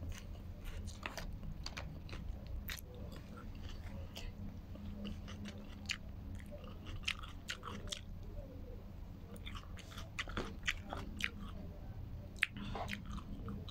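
A person chewing a mouthful of noodles close to the microphone, with many short, sharp mouth clicks and smacks at irregular intervals, over a low steady hum.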